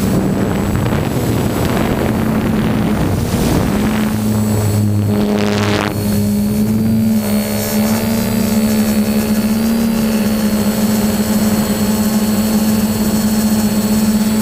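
Vintage snowmobile engine running steadily with a constant droning note, with a short rushing noise about five seconds in.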